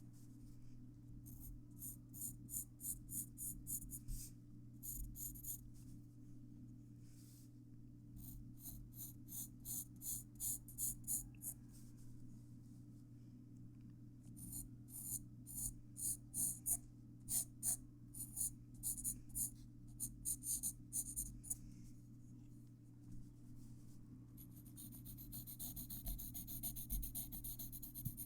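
Graphite pencil scratching on paper while shading, in runs of quick back-and-forth strokes, a few a second, with short pauses between runs; near the end the strokes become rapid, continuous hatching. A faint steady hum lies underneath.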